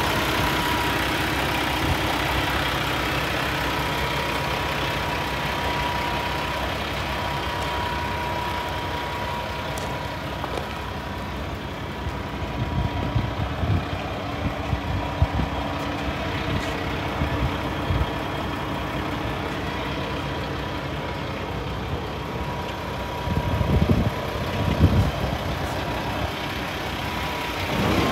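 Kenworth T680 day cab's heavy diesel engine idling steadily, with a thin steady whine above the engine note. Clusters of low bumps come twice in the second half.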